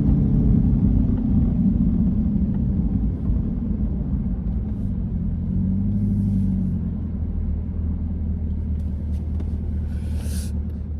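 Corvette C8's V8 engine running with a low road rumble as the car drives, the engine note swelling briefly about six seconds in.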